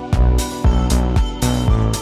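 Electronic background music with a steady, heavy bass beat.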